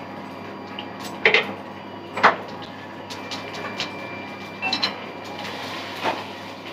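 Metal spoon knocking and scraping against a small pan on a gas stove: a handful of sharp clinks at uneven intervals, the two loudest in the first couple of seconds, over a steady background hum.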